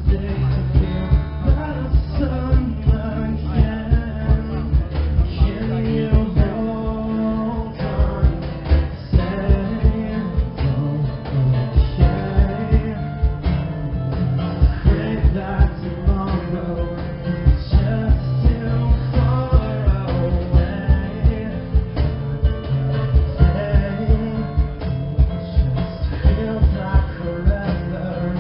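Live rock band playing an acoustic set: acoustic guitars and a lead vocal over a steady beat.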